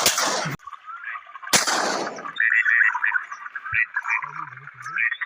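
Shotgun shots: a quick pair at the start and another about a second and a half in, each trailing off with a smear of echo. From about halfway on, a busy chatter of bird calls takes over.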